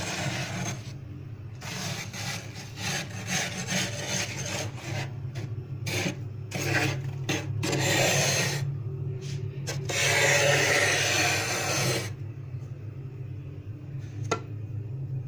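Thick freezer frost being scraped off in a series of rasping strokes, ending in a long loud scrape that stops about twelve seconds in. After that only a low steady hum remains, with a single click near the end.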